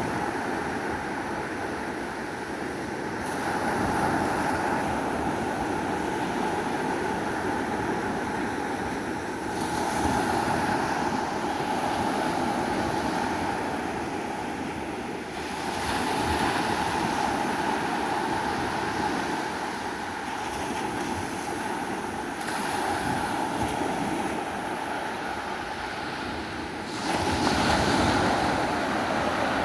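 Sea waves washing onto a beach, the surf swelling louder about every six seconds, with wind on the microphone.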